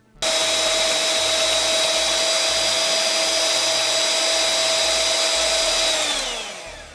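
Electric hand blender running at a steady speed while whipping a thick gel of washing soda and castile soap into a creamy mix in a glass jar. It switches on suddenly, holds a steady whine, then falls in pitch and fades as the motor spins down near the end.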